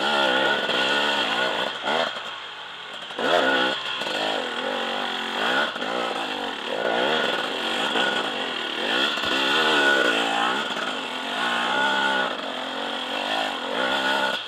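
KTM enduro motorcycle engine revving up and down over and over as the bike climbs a steep, rocky trail. The revs drop briefly about two seconds in, then pick up again.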